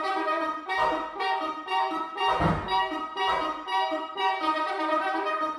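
Two soprano saxophones playing a duet of repeated, overlapping notes in a steady pattern, with a few short low thumps under them.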